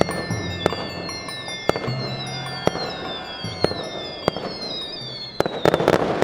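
Fireworks sound effect: sharp bangs about once a second, with high whistles falling in pitch, then a quick run of several bangs close together near the end. Music plays beneath.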